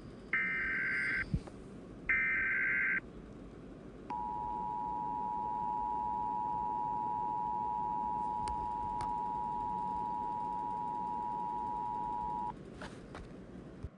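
Emergency Alert System broadcast signal: two short bursts of SAME header data tones, about a second each, followed by the steady two-tone EAS attention signal held for about eight seconds before it cuts off.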